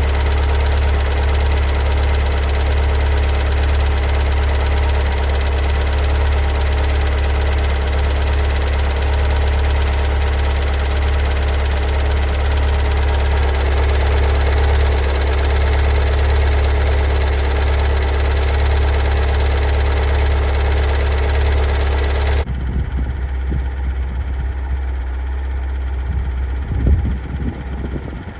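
Kia Sorento 2.2 diesel engine idling after a cold start with a loud knocking, a fault the dealer's diagnostics have not found. The engine sound cuts off abruptly about 22 seconds in, leaving low rumbling and a thump near the end.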